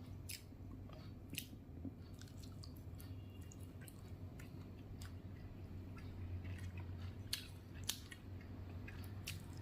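A person chewing a mouthful of biryani, with scattered wet mouth clicks and smacks, over a low steady hum.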